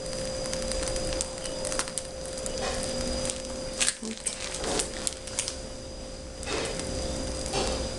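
Soft rustles and a few light taps from handling a plastic piping bag of whipped cream while decorating a cake, over a steady electrical hum.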